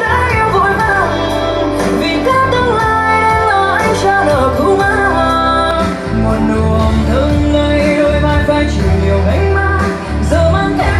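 A pop song with a sung melody over a strong bass line, played back loud through PA speakers, with brief dips in level about six and ten seconds in.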